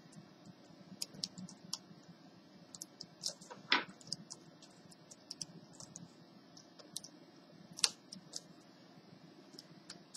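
Scattered, irregular key clicks as fingers press across a newly fitted HP 6530b laptop keyboard, seating it in place, with two louder clicks about four and eight seconds in.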